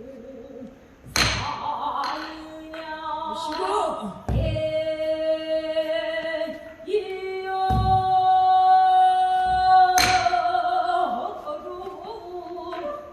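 A female pansori singer holds long notes with a wavering vibrato, accompanied by the buk barrel drum. There are about five strokes, some sharp and cracking and some deep thuds.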